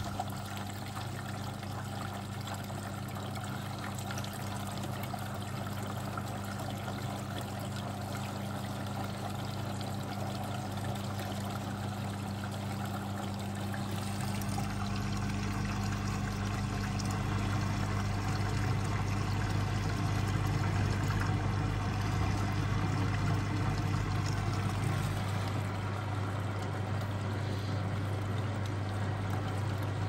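Beko WMB81341LS washing machine running: water pouring and trickling inside it over a steady low hum, the whole growing somewhat louder about halfway through.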